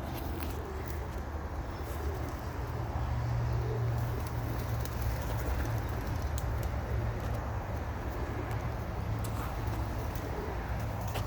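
Domestic pigeons cooing, low and intermittent, over a steady low hum, with scattered faint clicks.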